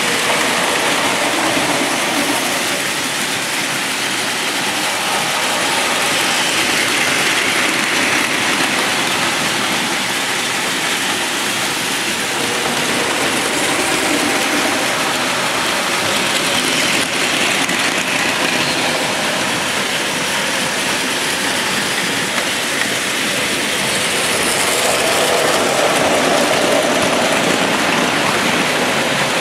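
Many battery-powered Plarail toy Shinkansen trains running at once on plastic track, making a steady dense whirr and rattle of small motors, gears and wheels on the track, swelling a little near the end.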